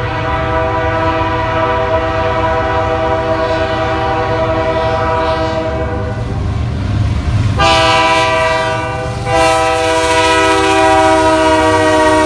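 Canadian Pacific GE AC4400CW diesel locomotive sounding its multi-chime air horn in long blasts as it approaches and passes, with a short break about halfway through and another a couple of seconds later. The low rumble of the locomotive and train runs underneath.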